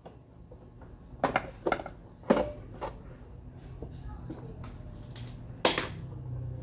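Parts of an Osterizer blender being handled: a handful of sharp clicks and knocks, two of the loudest about two seconds in and one near the end, over a faint low hum.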